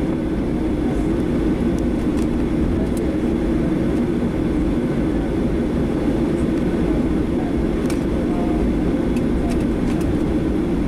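Steady rumble of a Boeing 737-700's CFM56 engines heard inside the passenger cabin, with a few faint rattles.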